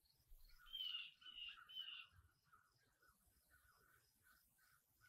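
Near silence on an outdoor range, with faint bird calls: three short chirps in quick succession about a second in, over a faint chirping that repeats a few times a second.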